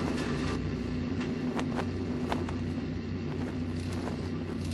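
A steady low mechanical rumble with a held hum, broken by scattered sharp clicks.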